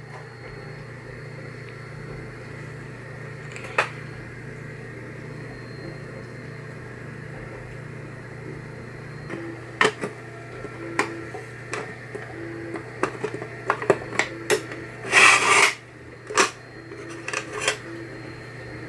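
Aluminium extrusion enclosure parts and loose screws being handled and fitted together: a steady low hum with a single click, then from about halfway a run of sharp metal clicks and knocks, with a short rattling scrape a little after that.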